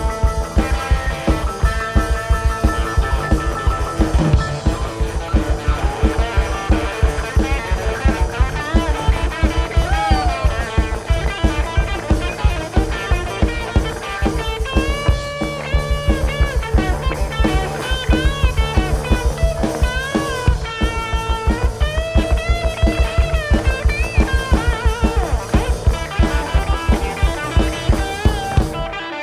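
Live rock band playing an instrumental passage: a lead electric guitar with bending notes over a fast, even drum beat and bass.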